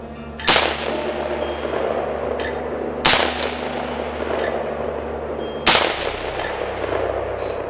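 AR-15 rifle with a polymer lower and a 16-inch barrel firing three single shots, one every two and a half seconds or so, each with a ringing echo.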